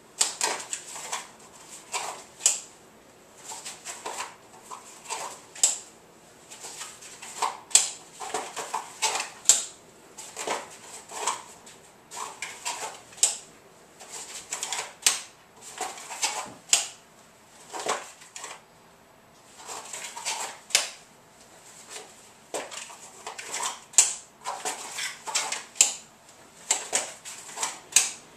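Repeated clicks and snaps of a PDA-style holster's magnetic flap being popped open and shut as a small Kel-Tec pistol is drawn and reholstered again and again, with rustling of the holster between. The clicks come in quick irregular clusters about every second or two.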